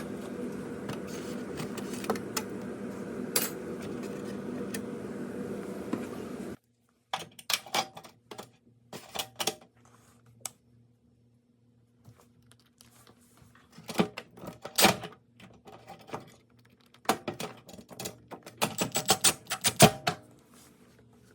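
A steady rushing hum cuts off suddenly about six seconds in. Scattered clicks and light metal clinks follow in clusters, from parts and tools being handled while working on a dishwasher.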